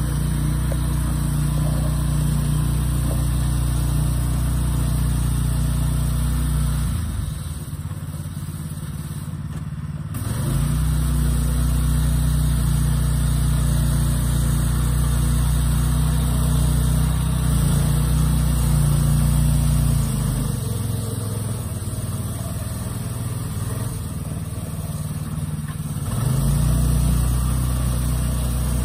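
Engine of a stripped-down pickup truck working its way over a dirt mound off-road, held on steady throttle. It eases off about seven seconds in and again about twenty seconds in, then revs back up each time.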